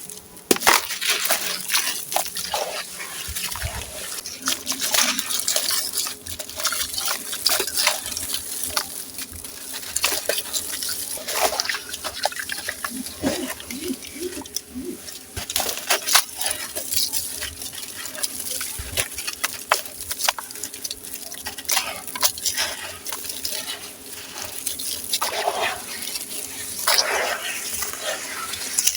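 Gritty sand-cement chunks dipped in water and crumbling, a busy stream of uneven crackles and crunches with wet, watery sounds.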